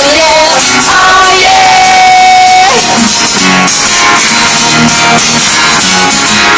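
Live unplugged rock band playing: strummed acoustic guitar under a sung voice that holds one note for about a second.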